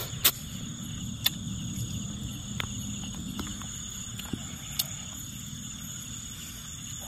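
Night insects calling in steady, unbroken high-pitched trills, with a few short sharp clicks now and then.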